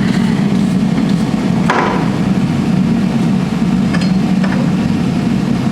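Gas forge burner running with a steady low rush of flame and air. A single knock sounds about two seconds in.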